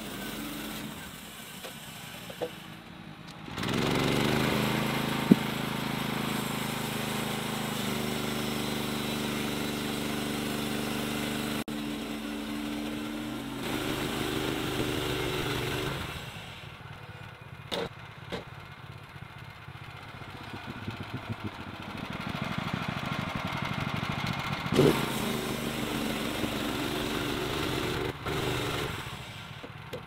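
Petrol engine of a portable bandsaw mill running under load as the band blade saws through an oak log. The engine note steps up about four seconds in and changes abruptly several times, louder again in the last third.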